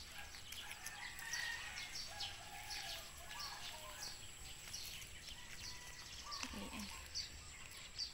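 Small birds chirping in short repeated calls, with chickens calling lower down; one call slides downward about six and a half seconds in.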